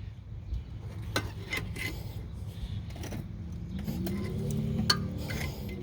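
Scattered light metallic clinks and taps of a pry tool working against a brake caliper as the caliper piston is levered back into its bore. A low droning tone comes in about four seconds in and carries on to the end.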